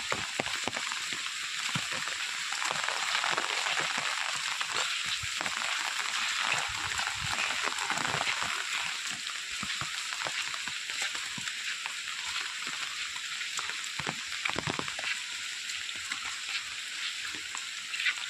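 Heavy rain falling onto standing floodwater and foliage: a steady, dense hiss full of close drop ticks, swelling slightly a few seconds in.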